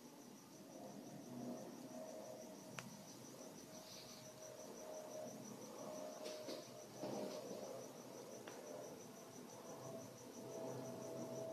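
A cricket chirping faintly in a steady, rapid, evenly pulsed run of high chirps, with a few light clicks and knocks over it.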